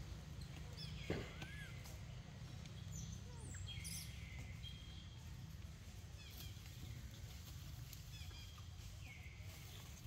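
Faint outdoor ambience: a steady low rumble with a few brief high chirping calls that fall in pitch, and one sharp click about a second in.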